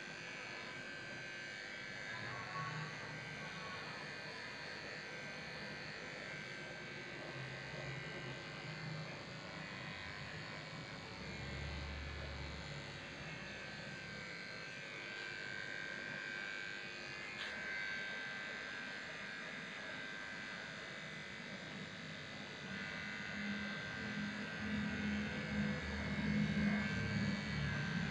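Electric dog grooming clippers running steadily.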